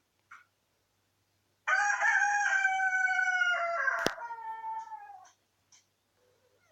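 A rooster crowing: one long crow of about three and a half seconds that drops in pitch at the end. A single sharp click sounds during it.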